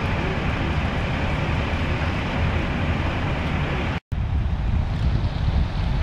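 Steady low vehicle-engine rumble mixed with wind buffeting the microphone; the sound drops out completely for a split second about four seconds in, then the wind noise carries on.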